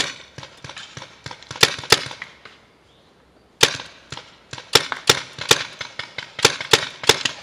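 Paintball markers firing in two quick volleys of irregular sharp pops, the first from the start to about two and a half seconds in, the second after a pause of about a second.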